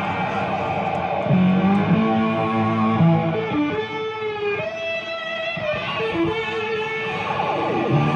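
Live rock music led by an electric guitar, played by a band on stage and heard through the stage amplifiers.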